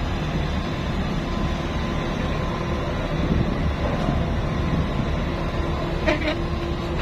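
Steady low rumble of ship's engines and machinery running, with a faint steady hum over it. A brief sharper sound cuts in near the end.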